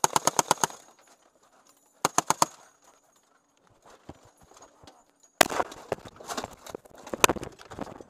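Short bursts of automatic gunfire, about seven rapid shots each, at the start and again about two seconds in. From about halfway there is a denser, irregular run of loud cracks and clatter.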